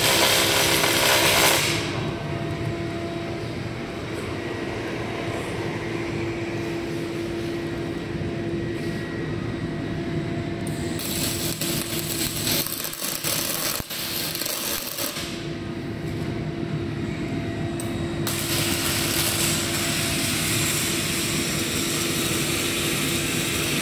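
Cloos GLC 503 CAPO MIG welding set switched on and idling, a steady machine hum holding one constant tone. A hiss cuts out about two seconds in, then comes back for a few seconds in the middle and again for the last stretch.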